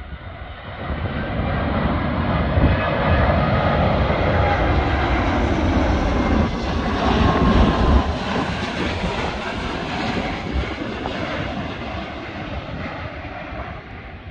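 Airbus A330neo's Rolls-Royce Trent 7000 jet engines during a go-around as the airliner passes low overhead. The engine noise builds about a second in, stays loud through the middle, then fades as the aircraft goes away.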